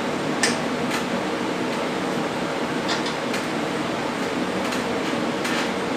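Steady hum and rush of moving air from a shop fan, with a few light clicks about half a second, one second and three seconds in.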